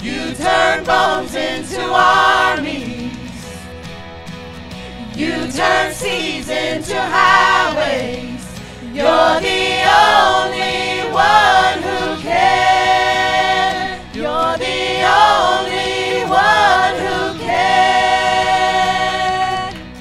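Church praise team singing a gospel worship song together, with long held and sliding vocal lines; it goes softer about four seconds in before building again.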